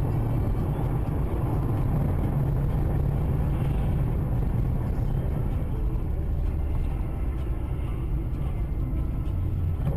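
Steady low rumble of a car's engine and tyres at highway speed, heard from inside the cabin.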